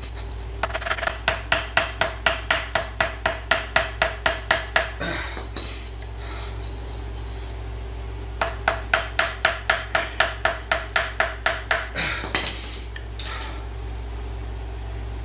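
A hammer beating a screwdriver to drive a bushing out of a steel ATV A-arm: two runs of quick, ringing metal blows, about four a second, with a pause of a few seconds between them, then a few looser knocks.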